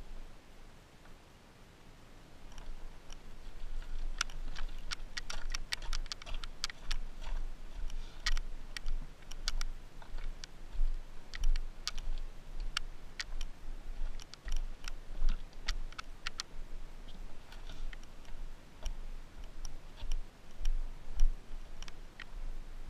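Footsteps crunching over loose rock rubble, with many sharp clicks of stones knocking together, after a quieter first couple of seconds. A low pulsing rumble of wind on the microphone runs underneath.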